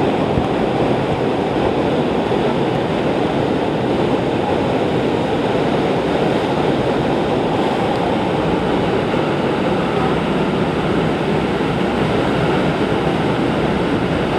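Steady, unbroken rush of pumped water from a FlowRider Flow Barrel surf machine: a thick sheet of water pouring up the ride surface and curling over into a standing barrel wave.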